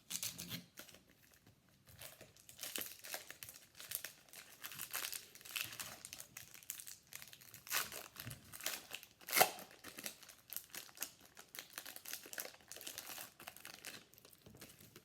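Crinkling and tearing of a foil trading card pack wrapper as it is ripped open, irregular crackling throughout with the loudest crackle about nine seconds in.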